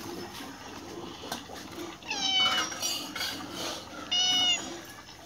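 Calico cat meowing twice, begging for food: a longer meow starting about two seconds in, and a shorter one about four seconds in.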